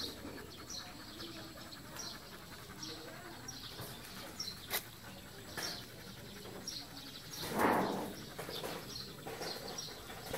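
Small birds chirping in short, repeated high notes, with a few faint clicks. About seven and a half seconds in comes a brief, louder rush of noise lasting about half a second.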